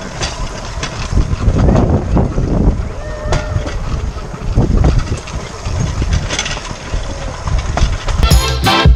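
Rail bike's steel wheels rolling along the railroad track: a steady rumble with irregular clacks over the rails. Background music comes in near the end.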